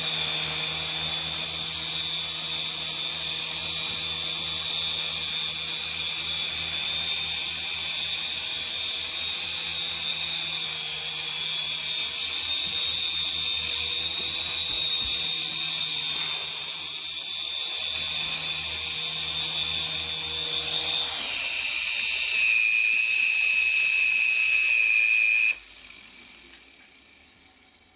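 Mini radio-controlled helicopter's electric rotor motors whining steadily at a high pitch over a low hum. Near the end the whine drops to a lower pitch, then cuts off suddenly a few seconds later.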